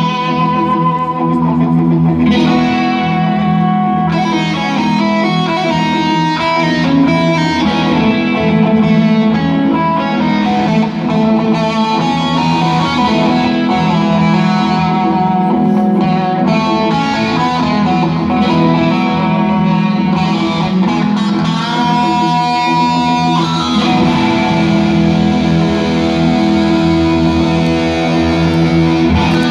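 Electric guitar, a white V-shaped model, played live and amplified. It plays melodic lead lines with several long held notes over steady low sustained notes.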